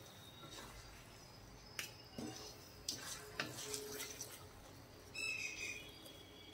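Wooden spatula stirring thick wheat halwa in a brass kadai, giving a few faint scrapes and soft knocks against the metal as the heavy, ghee-oozing mass is turned. A brief high squeak sounds about five seconds in.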